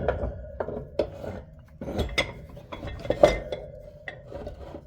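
Small Dunlap bench vise being handled, its metal parts clinking and knocking: a string of sharp clanks, the loudest about three seconds in.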